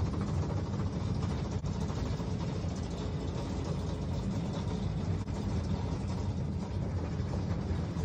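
Small steep-slope monorail car climbing its single rail, its drive unit giving a steady low mechanical rumble that does not let up.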